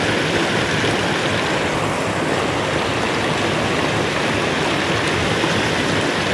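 Floodwater gushing steadily over a small dam and down a swollen creek: a constant, even rush of water.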